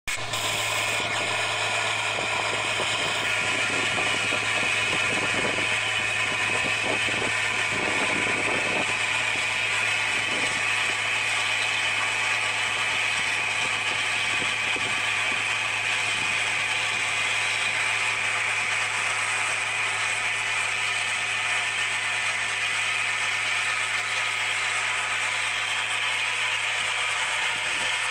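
New Holland 8080 combine harvester running steadily while cutting and threshing grain: a constant engine drone mixed with the whir and rattle of its threshing machinery.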